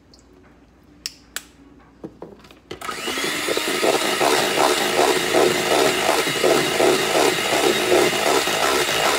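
A few light clicks and knocks. Then, about three seconds in, an electric hand mixer switches on with a brief rising whir and runs steadily with a regular pulsing, its beaters whipping cream cheese pound cake batter in the mixing bowl.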